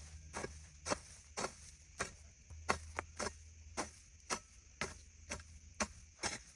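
A run of sharp, irregular taps, about two to three a second.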